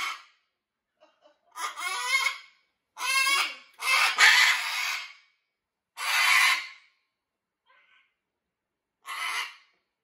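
Macaw calling: five loud squawks with short gaps between them, the longest and loudest about four seconds in.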